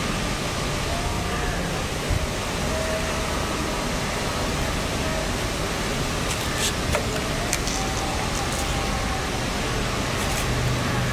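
Steady rushing background noise, with a few faint clicks about two thirds of the way through.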